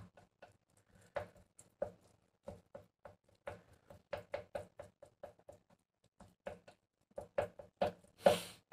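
Wooden chopsticks clicking and scraping lightly against a ceramic bowl as flaked tuna is stirred: a quiet, irregular run of clicks a few times a second, with one louder, longer noise near the end.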